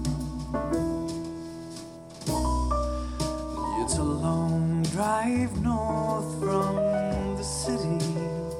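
Pop song with a singer, piano-like chords and strong deep bass notes, played back through small desktop speakers and recorded in the room. The bass drops away briefly about two seconds in and then returns.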